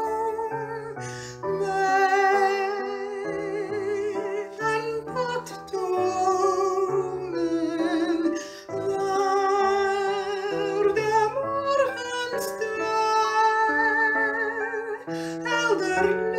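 A woman singing long held notes with vibrato, without clear words, over a plucked string accompaniment.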